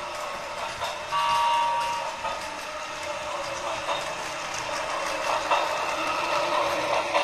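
Battery-driven Plarail toy train, Keikyu 2100 Blue Sky Train, running on plastic track: the motor and gears whir and the wheels clatter over the track joints. About a second in, the sound unit in the middle car plays a loud electronic tone for about a second.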